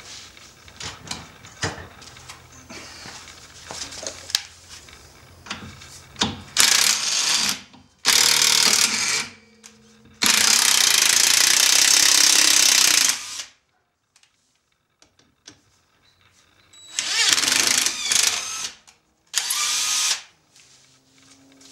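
Cordless impact driver hammering in five bursts, the longest about three seconds, as it drives bolts into a rear brake drum's threaded holes to press the drum off the hub. Light clinks of tool handling come before the first burst.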